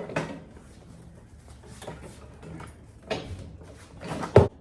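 Knocks and scrapes as a tall animatronic figure is shuffled backwards, with a sharp, loud knock near the end.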